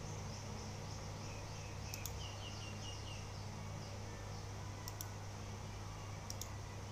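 A steady low hum, with faint runs of quick, high chirps in the first few seconds. Three sharp double clicks come at about two, five and six seconds in.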